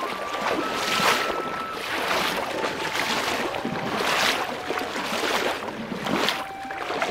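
Rushing, splashing water that swells and eases every second or two, with a few faint steady tones above it.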